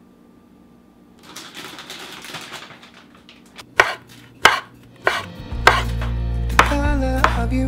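Kitchen knife chopping mushrooms on a wooden cutting board, single sharp chops starting about three and a half seconds in and coming every half second to a second, after a soft rustling. Background music with a steady bass comes in about halfway through and runs under the later chops.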